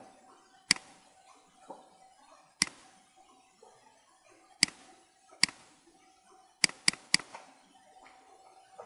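Computer mouse clicking: about seven sharp, separate clicks at uneven intervals, three in quick succession near the end, over a faint steady hum.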